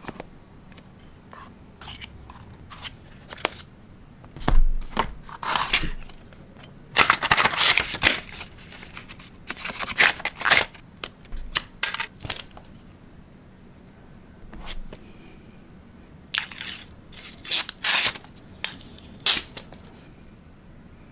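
A smartphone's retail box and packaging being opened and handled: irregular rustling and tearing of paper and plastic, with scattered clicks and knocks coming in clusters.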